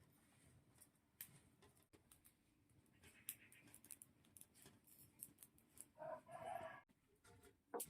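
Near silence with faint scattered clicks, and a short hen-like cluck about six seconds in.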